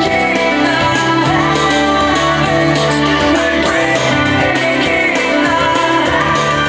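Instrumental stretch of a rock song: guitar and bass chords with a steady beat, no singing.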